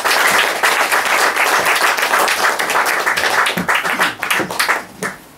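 Audience applauding: dense clapping that thins out to a few scattered claps near the end.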